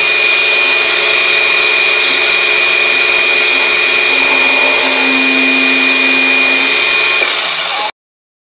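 Milling machine spindle running at speed with a steady high whine, driving a tiny boring bar ground from a broken drill bit. The sound drops a little about seven seconds in, then cuts out abruptly.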